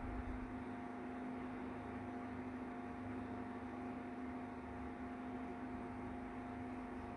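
Steady electrical hum over a faint background hiss, unchanging throughout.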